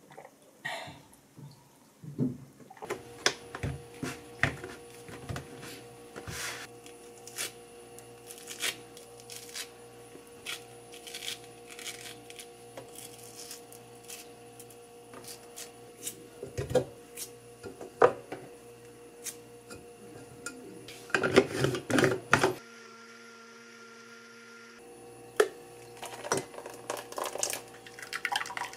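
Tangerines being peeled by hand and handled on a counter: many small clicks, tears and knocks over a steady faint hum, with a dense clatter of knocks a little after the middle. Near the end, tangerine pulp is pressed through a mesh sieve with a wooden spoon, juice trickling into a glass bowl.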